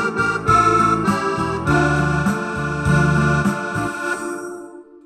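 Yamaha PSR-S670 arranger keyboard playing rhythmic chords over a bass line in an organ-like voice. It ends on a held chord that dies away near the end.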